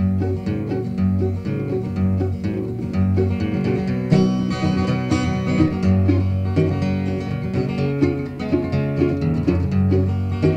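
Instrumental break of a bluegrass song: plucked acoustic strings picking quick notes over a steady, rhythmic bass line.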